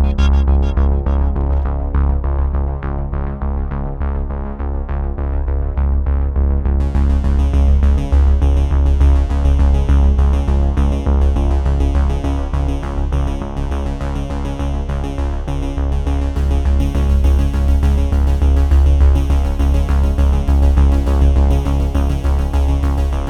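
Electronic music with synthesizer and a steady heavy bass beat; the high end drops out for the first several seconds and comes back in about seven seconds in.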